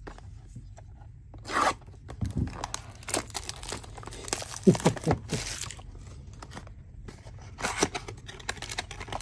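A sealed trading-card pack's wrapper being torn open by hand, with a run of irregular rips and crinkles starting about a second and a half in.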